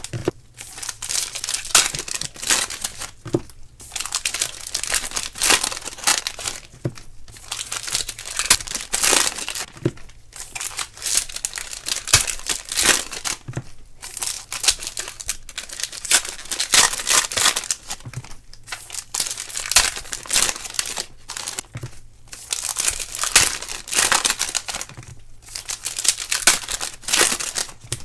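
Trading-card pack wrappers being torn open and crumpled by gloved hands, a continuous crinkling in irregular bursts with brief pauses.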